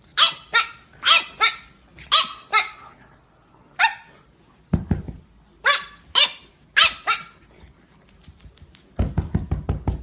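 French bulldog puppy giving a string of short, high-pitched barks in quick groups, each bark falling in pitch. A low thump comes about halfway and a rumble of low knocks near the end.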